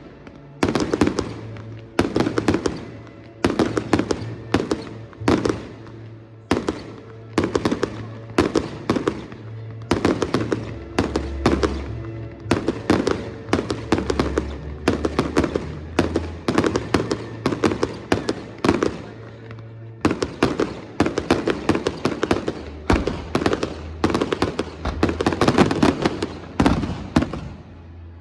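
A fireworks display: aerial shells bursting one after another, one or two bangs a second, each trailing off briefly. The barrage is loudest near the end, with music playing underneath.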